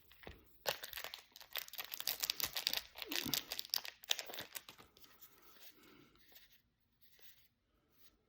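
A trading card pack wrapper being torn open and crinkled: a dense crackling tear for about four seconds, then faint rustling as the cards are handled.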